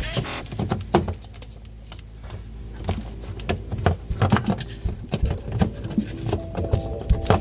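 Irregular close-up taps, knocks and rubbing of a hand working among plastic trim and wiring behind a Mercedes W221 S550 headlight, over a low steady hum.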